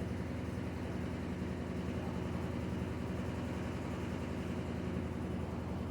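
Washing machine running and shaking hard: a steady low rumble with a fast, even pulsing.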